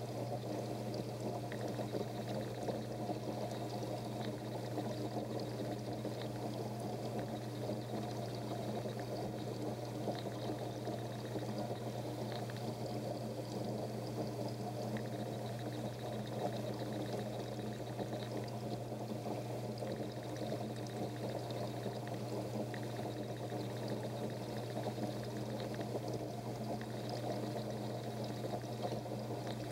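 Aquarium water circulating: a steady pouring, trickling sound of water over a low, constant hum from the filter pump.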